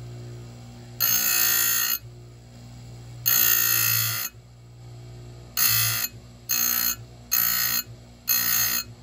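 Oregon bench chain grinder's motor running steadily while its grinding wheel is brought down onto a chainsaw chain cutter tooth six times, grinding metal with a spray of sparks: two passes of about a second, then four short taps near the end.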